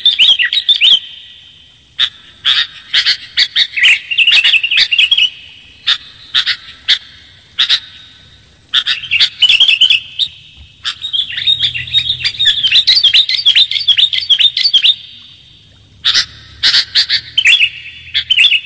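Sooty-headed bulbul (kutilang) song, a lure recording for trapping bulbuls: bouts of quick, bubbly chattering phrases, each lasting one to four seconds, with short pauses between them.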